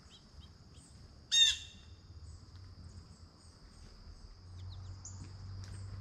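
A blue jay gives one loud call about a second and a half in, lasting about half a second, with a few faint chirps scattered around it over a steady high-pitched drone.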